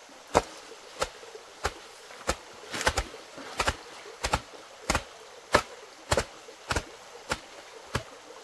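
Repeated hard chopping or pounding strikes in an even rhythm, about one every 0.6 seconds, one of them doubled near the middle.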